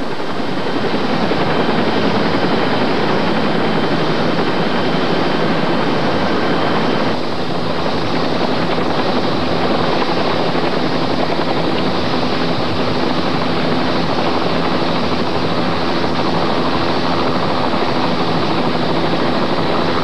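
U.S. Army helicopter hovering during a hoist rescue: loud, steady rotor and engine noise. A thin high whine drops out about seven seconds in.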